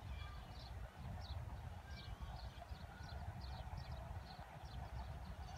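Faint outdoor ambience: a steady low rumble, like wind on the microphone, with short high chirps of small birds repeating about twice a second.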